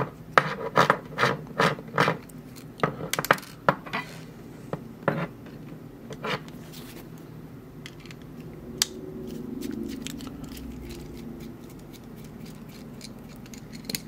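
Screwdriver working the small screws out of the back of a brass dimple lock cylinder to free its cam plate: metal scratching and rubbing, with many sharp clicks over the first few seconds, then quieter scraping.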